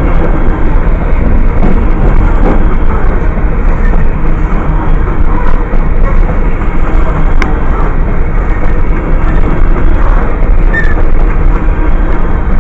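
CN freight train of open-top hopper cars rolling past at close range: a loud, steady rumble and clatter of steel wheels on the rails, with one sharp click partway through.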